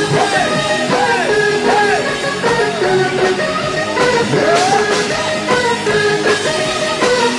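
Live rock band playing loudly through a PA: electric guitars and drum kit, with a sung melody rising and falling over them.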